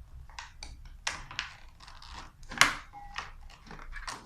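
Hands handling a Nerf blaster's packaging: a run of irregular clicks, taps and rustles of cardboard and plastic, with one sharper knock about two and a half seconds in.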